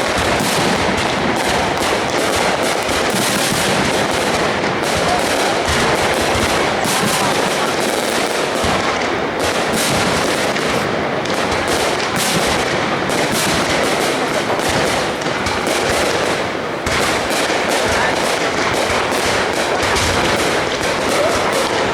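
Aerial fireworks bursting in rapid, overlapping bangs and crackles, a near-continuous barrage, with crowd voices underneath.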